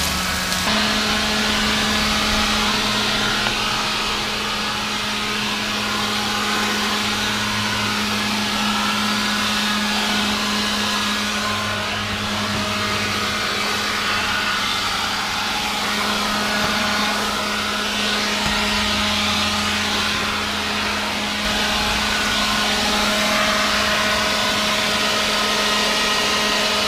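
Handheld leaf blower running steadily with a constant hum under its rushing air. It cuts off abruptly at the end as it is switched off.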